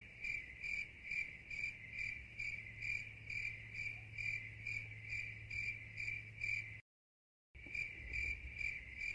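Cricket chirping: an even run of short, high-pitched chirps a little over two a second, which cuts out briefly about seven seconds in and then resumes.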